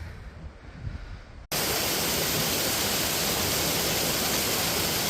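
Low wind rumble on the microphone. About a second and a half in it cuts off suddenly and a waterfall's steady rush of falling water takes over.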